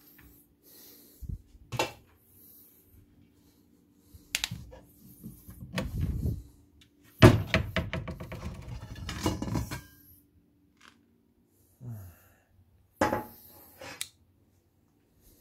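Kitchen handling sounds: dishes, utensils and cupboard doors knocking and clattering in a series of separate knocks, with a longer stretch of rapid clattering about halfway through.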